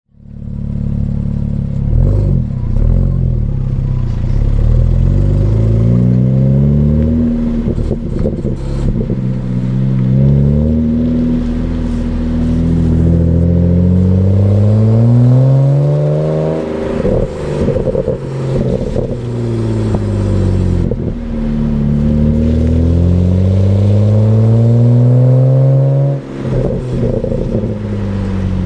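BMW 335i's twin-turbo 3.0-litre straight-six with stock exhaust, accelerating through the gears: the engine note climbs steadily in pitch, drops back at each gear change, then climbs again, several times over.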